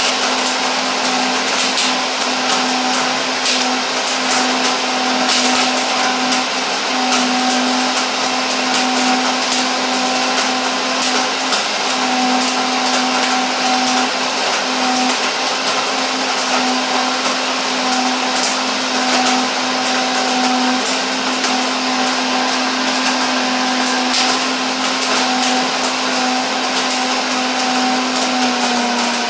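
High-speed countertop blender running at full speed, churning coconut milk with dates, turmeric and ginger into a creamy drink. The motor holds a steady pitch and starts winding down at the very end as it is switched off.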